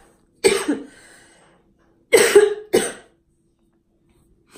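A woman coughing: two short fits of two coughs each, about a second and a half apart.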